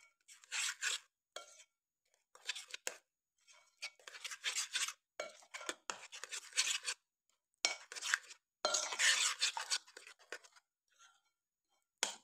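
Metal spoon scraping and stirring around a metal bowl as flour is mixed into wet cake batter, in irregular strokes of scratchy rubbing with short pauses between them. A sharp knock of the spoon against the bowl comes near the end.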